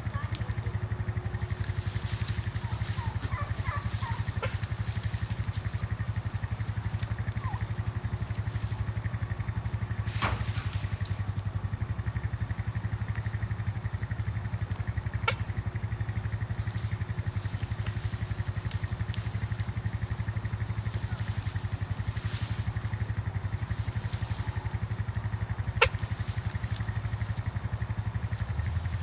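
Engine running steadily at a constant speed, with a few short chirps in the first seconds and three sharp clicks or knocks spread through.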